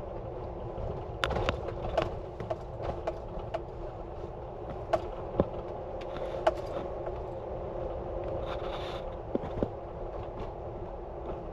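Steady low background noise with scattered light clicks and knocks at irregular intervals.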